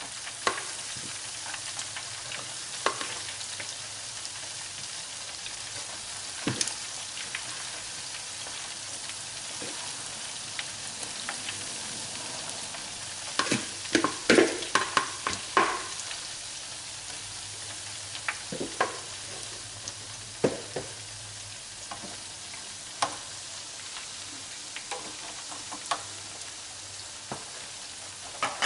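Flour-coated shrimp deep-frying in hot oil in an electric deep fryer: a steady sizzle, with scattered clicks and clinks of metal tongs against the fryer basket and bowl, busiest about halfway through.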